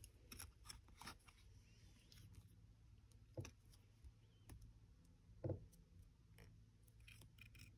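Near silence with faint clicks of paper and metal tweezers being handled, and two soft knocks about three and a half and five and a half seconds in.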